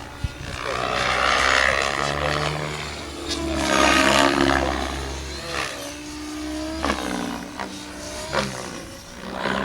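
Electric 12-cell 3D RC helicopter flying aerobatics: rotor blades whooshing and the drive whining. The pitch bends and the loudness swells and fades several times as it swoops through manoeuvres, with a few short sharp snaps among them.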